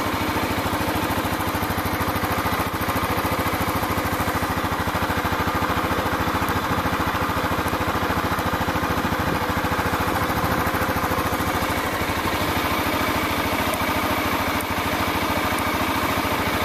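Motorcycle engine running steadily at idle or a slow crawl, its firing pulses heard close up.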